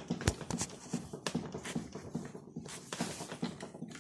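Footsteps on paving stones, about three a second, with a sharper knock about a third of a second in, over the rustle of a hand-held phone.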